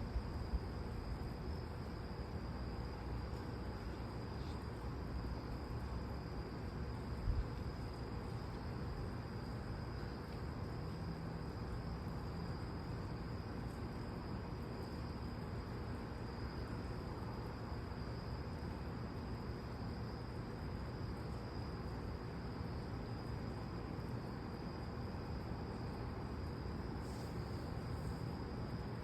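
Night insects, crickets, chirring in a steady high-pitched chorus over a low background rumble, with no thunder. A small knock sounds about seven seconds in.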